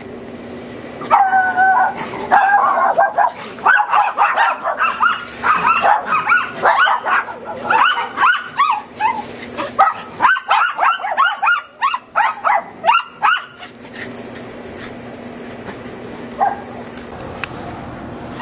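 Several small dogs barking rapidly and high-pitched, their barks overlapping, for about twelve seconds. They then fall quiet, with one more short yip a few seconds later.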